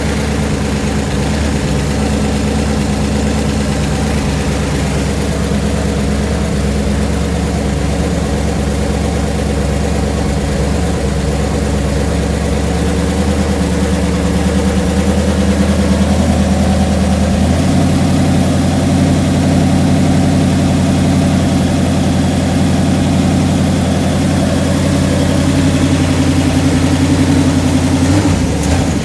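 Chevrolet 454 big-block V8 idling steadily. Its idle steps up slightly about two-thirds of the way through.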